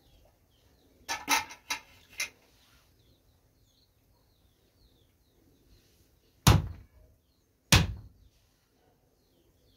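Two heavy thuds about a second and a half apart: a hard-shelled bael fruit struck down on a wooden block to crack its shell. They follow a quick run of sharp clicks and clatters a second or two earlier, and faint bird chirps sound in the background.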